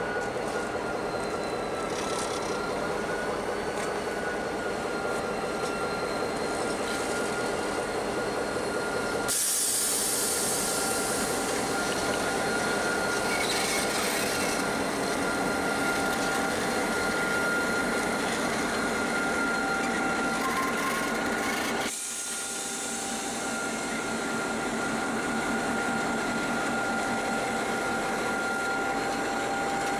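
Diesel-electric locomotive engines running, from BL class BL32 and X class X43, with a steady high whine over the engine sound that wavers slightly in pitch in the first few seconds. The sound changes abruptly twice, at edits.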